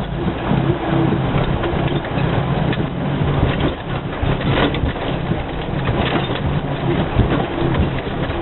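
A vehicle's engine running steadily under a rough, constant noise dotted with many short knocks and rattles, as of the vehicle jolting over rough ground.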